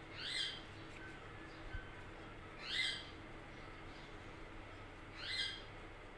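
A bird calling: three short calls, about two and a half seconds apart, over a faint steady hum.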